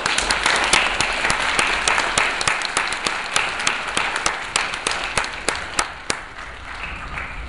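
An audience applauding, with many hands clapping at once. The clapping is densest at first and thins out and quietens toward the end.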